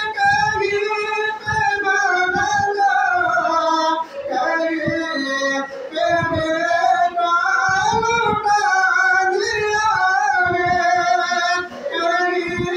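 A man singing solo and unaccompanied into a microphone: one long melodic line of high, held, wavering notes with short breaths between phrases.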